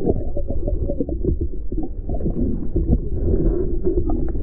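Muffled underwater sound from a camera microphone under the water: a steady low rumble with dense crackling of water, dull with no high sounds.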